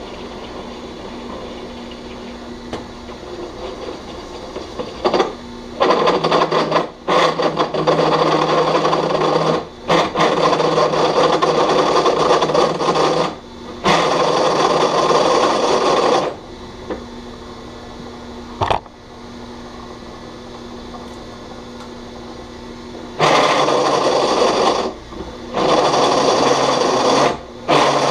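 Drill press motor running steadily while a step drill cuts a large hole through a metal plate, the cutting coming in several spells of a few seconds each with pauses in which only the motor hums.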